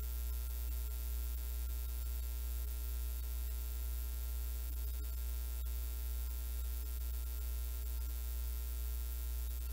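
Steady low electrical hum, mains hum in character, with faint steady higher tones above it and a couple of faint ticks about halfway through.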